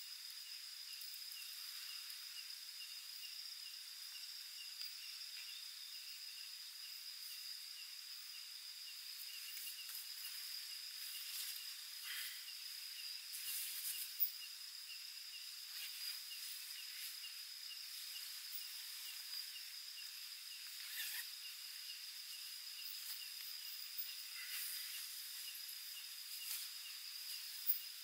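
Night insects chirring in a steady, high-pitched chorus, one of them pulsing in a fast, even rhythm. Now and then there are short rustles and clicks of tent fabric and bedding as someone moves about inside the tent.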